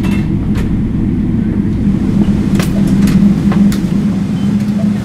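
Steady low rumble and hum in the cabin of a Boeing 777-300ER taxiing, its engines at idle, with a few faint clicks.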